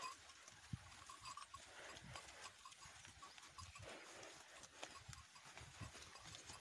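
Yoked pair of bullocks walking over soft tilled soil, their hooves giving faint, irregular plodding steps.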